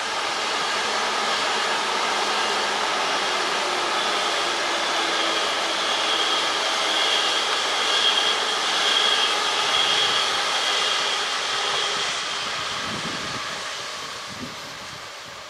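ICE electric high-speed train running slowly past on curved track: a steady rushing of wheels and fans with a faint high whine through the middle. It fades away in the last few seconds.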